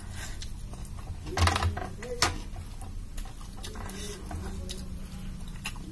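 Close-miked eating sounds: wet mouth clicks and smacks as dal and rice are eaten by hand, with fingers scooping food on the plate. There is a louder cluster about a second and a half in, and a low steady hum underneath.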